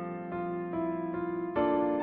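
Gentle background music on electric piano, soft sustained notes changing every half second or so, with a new, louder chord about one and a half seconds in.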